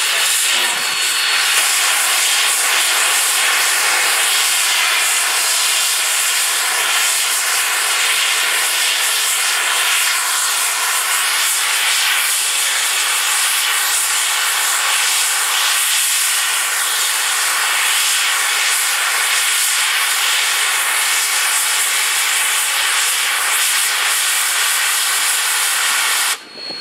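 Steam hissing loudly and steadily from standing narrow-gauge steam locomotive No. 463, a Denver & Rio Grande K-27 2-8-2. The hiss cuts off abruptly near the end.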